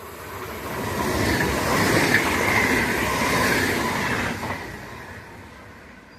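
Train passing at high speed: the rush and rattle of the cars on the rails builds to a peak about a second in, holds for a few seconds, then fades as it goes by.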